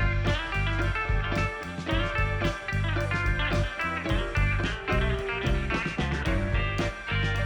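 Background music: a guitar-led track of plucked notes with a steady bass.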